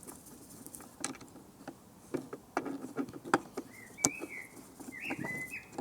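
Screwdriver clicking and tapping against a pressure washer's plastic housing while working at stuck screws, in scattered small knocks. A bird chirps several times near the end.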